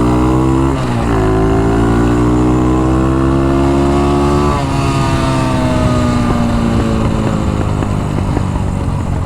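Dax-type small motorcycle's single-cylinder four-stroke engine pulling up through the revs, dropping briefly about a second in at a gear change, then rising again. From about four and a half seconds in the revs fall slowly as the throttle closes. The bike's exhaust has a leak.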